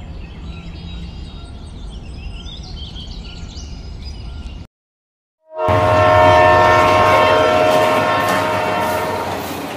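Birds chirping over a low outdoor rumble, then a sudden break into silence. About six seconds in, a passenger train's horn sounds loudly as a chord of several steady tones, over the rumble of the passing train, and fades over the next few seconds.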